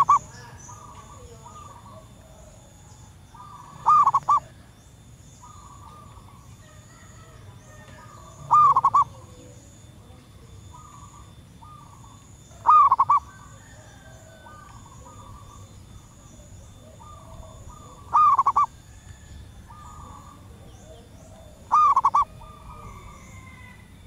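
Zebra dove cooing: short bursts of a few quick, rolling notes about every four seconds, six times, with fainter cooing calls in between.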